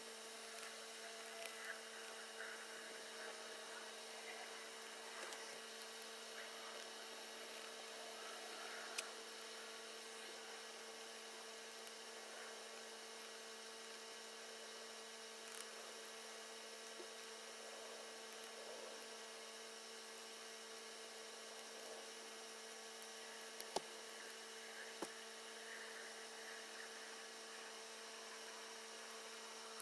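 A faint, steady electrical hum with a few light clicks.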